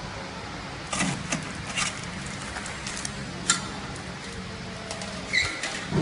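Sharp metallic clicks and clinks, about six, from parts being handled and fitted on a sachet filling machine, over a steady low machine hum.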